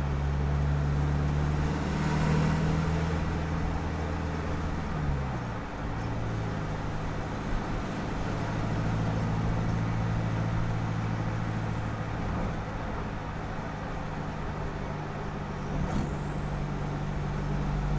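Isuzu KB300's 3.0 turbo-diesel engine and stock exhaust running while the pick-up drives, heard from a microphone under the truck. The engine note drops about five seconds in, then holds steady over road noise.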